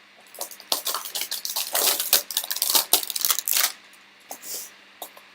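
Crinkling, crackling and tearing of a trading-card hanger box's packaging being opened by hand, busiest from about half a second in to nearly four seconds, then one short rustle.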